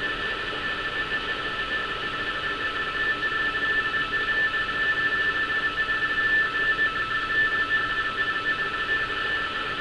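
Radioteletype (RTTY) signal from a Target HF3 shortwave receiver: a steady two-tone warble, two tones about 450 Hz apart alternating as the data comes in, over shortwave hiss. It carries a German coastguard navigational warning as text.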